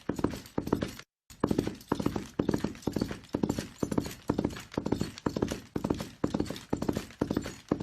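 Horse galloping: hooves striking in quick rolling clusters about twice a second, with a brief moment of silence about a second in.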